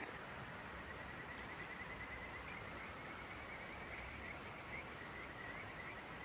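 A calling animal's steady high-pitched trill, starting about half a second in and wavering slightly toward the end, over an even background hiss.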